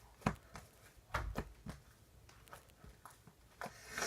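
Scattered soft clicks and taps from a slime container and its slime being handled, with a dull thump a little over a second in.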